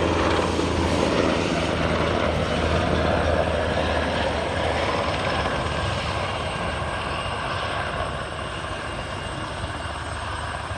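Military helicopter in flight, its rotor and engine noise a steady low rumble that fades gradually as it flies away.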